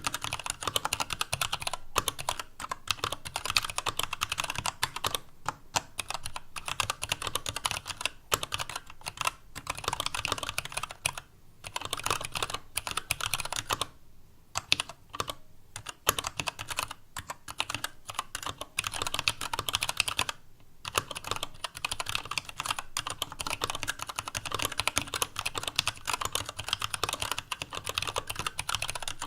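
Steady typing on a TADA68 65% mechanical keyboard with Gateron Brown tactile switches, PBT keycaps and a stainless steel plate: a fast, continuous run of key clacks broken by a few short pauses. The ABS case sounds hollow to the owner because of a lot of empty space inside it.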